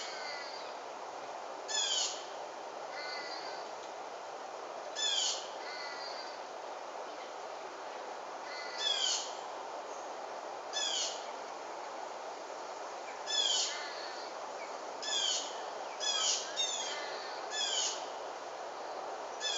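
A bird calling repeatedly: about ten short, high-pitched notes, each sliding quickly downward, one every second or two, over a steady background hiss.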